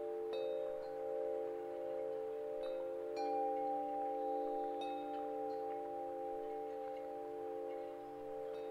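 Wind chimes ringing, several overlapping sustained tones with a fresh strike every second or two.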